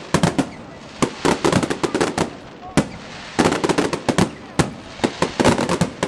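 Aerial fireworks shells bursting overhead: sharp bangs in quick clusters with brief lulls between them.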